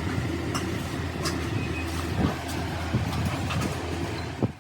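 A steady low engine drone, with scattered sharp clicks and knocks over it.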